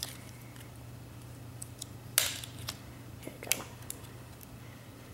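Thin clear plastic packaging tray being handled and pulled off an iPod touch: a few short clicks and crackles, the loudest about two seconds in and another sharp one about three and a half seconds in.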